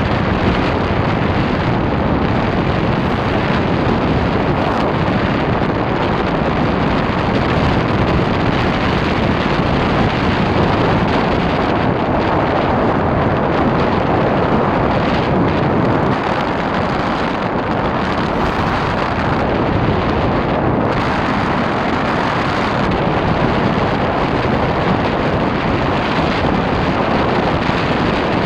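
Steady wind rush buffeting the microphone of a rider moving at speed on a motorcycle, easing slightly for a few seconds past the middle.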